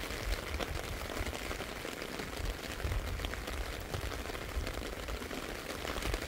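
Steady rain falling, a dense patter of fine drops hitting the canal surface and bank, with a low rumble underneath.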